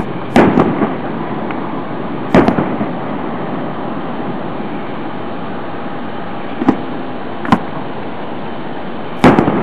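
Fireworks going off with sharp bangs, a few seconds apart: a cluster of bangs near the start, another cluster a couple of seconds later, two single bangs later on, and a loud double bang near the end, over a steady background hiss.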